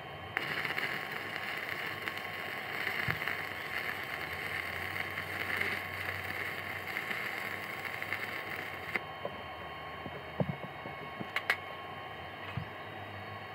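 Stick-welding arc from an AP Welding MMA-400 inverter welder: a steady hiss as the electrode burns down onto steel plate, starting about half a second in and stopping about nine seconds in when the arc is broken. A few light knocks follow near the end.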